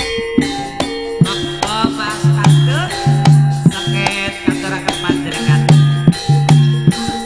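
Javanese gamelan music on a steady beat: sharp kendhang hand-drum strokes over ringing bronze gong-chimes and sustained low gong tones.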